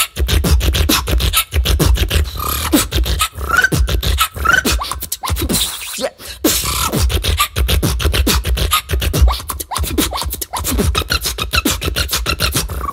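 A woman beatboxing solo into a studio microphone: a fast, dense beat of kick drums, snares and hi-hats, with short rising vocal glides laid over it. The beat drops out briefly about five seconds in, then comes back in.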